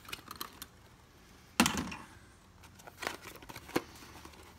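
A cardboard product box being opened and handled: one sharp crack about one and a half seconds in, with a few lighter clicks and taps around it as the flaps are pulled back and the contents shift.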